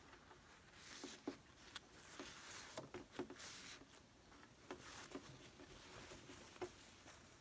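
Faint rustling of cotton fabric being pushed by hand along a gathering thread to bunch it into a ruffle, with a few soft ticks.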